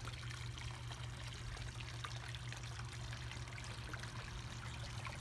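Water trickling and pouring steadily into a garden pond, with a low steady hum underneath.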